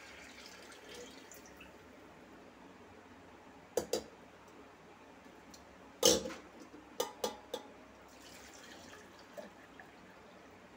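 Water poured from a metal lota into an earthen clay pot, trailing off within the first couple of seconds. Then a few sharp knocks and clinks, the loudest about six seconds in.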